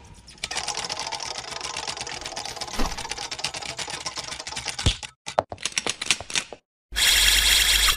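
A rapid, dense run of clicks like typewriter keys for about four seconds, thinning to a few scattered clicks, then a brief silence and a loud, harsh burst lasting about a second near the end: sound effects of an animated logo intro.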